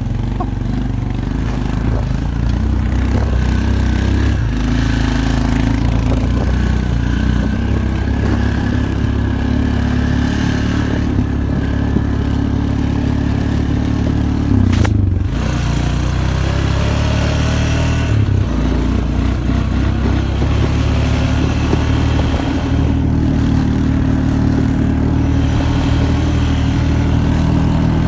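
Snowmobile engine running steadily while under way, heard from aboard. There is a sharp knock about halfway through, and the engine note shifts shortly after.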